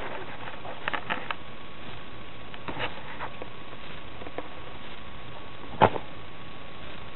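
A puppy mouthing and tugging at a fabric ring toy: a few light taps and clicks, then one sharper knock a little before the end, over a steady hiss.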